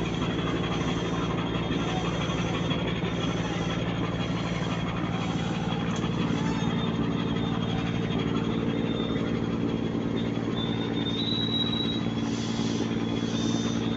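Cargo ship's engine running steadily, an even low hum.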